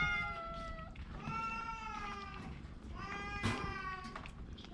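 Domestic cat meowing repeatedly: three drawn-out meows of about a second each, slightly falling in pitch, with the first trailing off about a second in.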